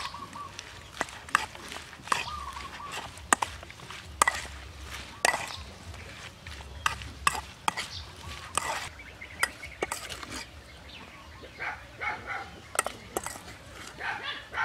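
Metal spoon clinking and scraping against a stainless steel mixing bowl as a salad is tossed, in irregular sharp clinks about once a second.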